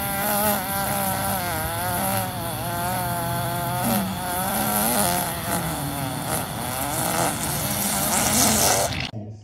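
A dog vocalizing in one long, continuous sound whose pitch wavers up and down, cutting off suddenly near the end.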